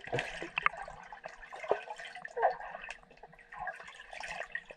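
Swimming-pool water heard from a submerged camera: muffled bubbling and sloshing with many small clicks and pops, over a faint steady hum.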